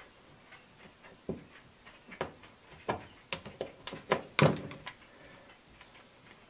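A razor blade slitting PEX tubing to free a crimped-on brass fitting: a string of light clicks and small knocks for a few seconds, the loudest about four and a half seconds in, then it stops.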